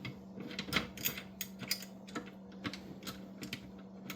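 Light, irregular metal clicks and taps as a bolt is fitted by hand into a workbench caster's mounting on a pottery wheel leg. Most of the clicks come in the first two seconds, over a faint steady hum.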